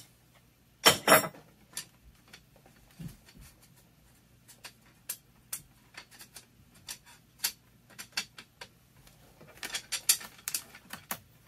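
Thin laser-cut aluminium slats clinking and clattering as they are handled and laid out on a workbench: a run of light taps and clicks, with louder clatters about a second in and again near the end.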